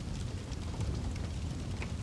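Wood fire crackling, with scattered sharp pops and snaps over a steady low rumble.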